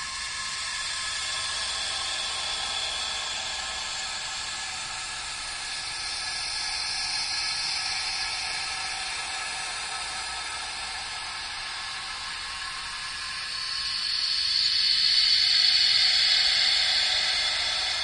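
Ambient sound effect of airy hissing noise with faint steady tones in it, swelling and easing slowly, with its loudest swell near the end.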